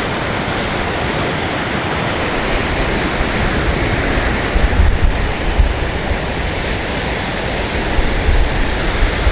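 Surf breaking and washing on an open beach, with wind buffeting the microphone in gusts that rumble about halfway through and again near the end.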